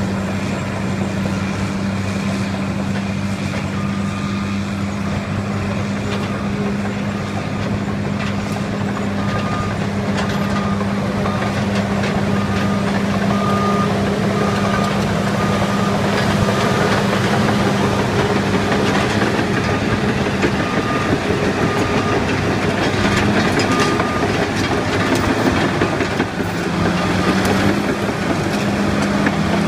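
Large Caterpillar crawler dozer working close by: its diesel engine runs steadily under load while the steel tracks clank and rattle. A faint, evenly spaced beeping runs through the middle, and the engine note drops near the end.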